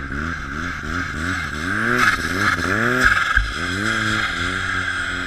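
Snowmobile engine revved again and again, its pitch rising and falling in a string of throttle blips, with a steady high hiss underneath.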